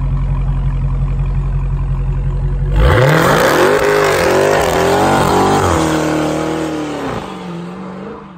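Dodge Charger Hellcat's supercharged V8 idling with a steady low burble, then revving hard about three seconds in as the rear tyres spin in a burnout, the engine pitch rising and wavering over the hiss and screech of the tyres. The revs drop back as the car pulls away, and the sound cuts off suddenly at the end.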